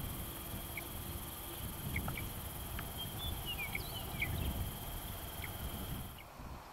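Evening outdoor ambience: steady high-pitched insect trilling with scattered short bird chirps and a low rumble underneath. It drops away about six seconds in.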